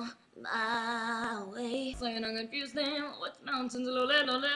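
A woman singing solo, holding a long note with vibrato, then running through shorter notes after a brief breath.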